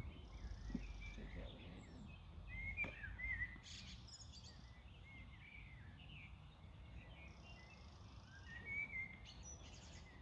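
Small birds chirping with many short, scattered calls, over a low rumble that is strongest in the first few seconds.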